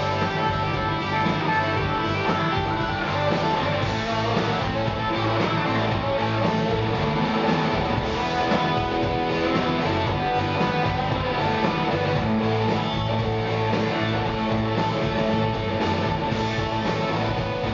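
Live rock band playing an instrumental passage: electric guitars, bass guitar and drum kit at a steady loudness.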